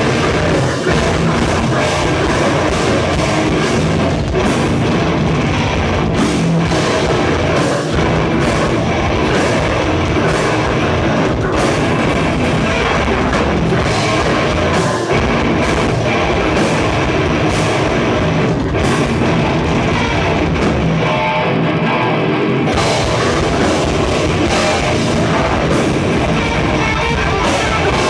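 A live heavy rock band playing loud: electric guitars, bass and drum kit. Shortly after twenty seconds in the low end and the cymbals drop away for about two seconds, then the full band comes back in.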